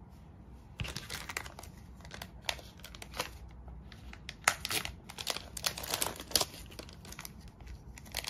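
Thin clear plastic packaging crinkling and rustling as it is handled. The crackles are irregular and start about a second in.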